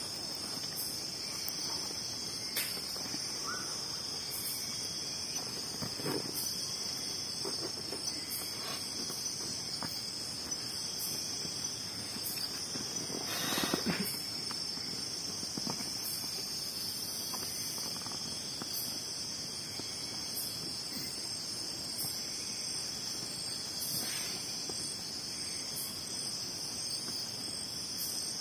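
Night insects trilling steadily in a high band, with a short high chirp repeating about once a second. About halfway through comes a brief rustle, the loudest sound in the stretch.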